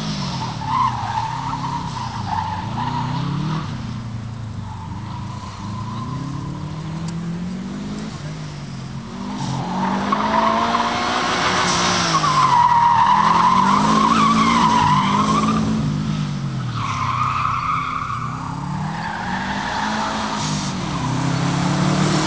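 Subaru Impreza WRX's turbocharged flat-four engine revving up and dropping back again and again as the car is driven hard through tight turns. Tyres squeal through the corners, briefly about a second in, longest and loudest around the middle, and again a little later.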